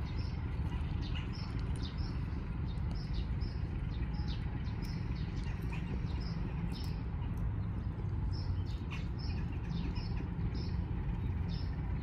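Freight locomotive pulling away with a steady low rumble, while small birds chirp again and again over it.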